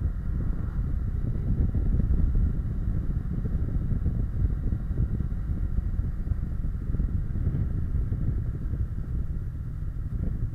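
Kawasaki Versys 650's parallel-twin engine running at a steady cruise, mixed with wind buffeting on the bike-mounted camera's microphone.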